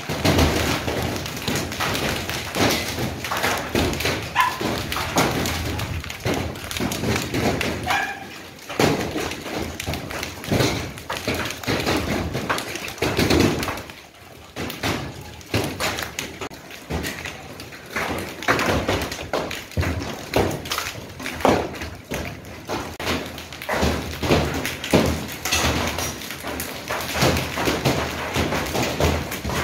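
A hailstorm: hailstones pelting down densely onto wet ground and hard surfaces, a continuous clatter of thuds and taps, with brief lulls about 8 and 14 seconds in.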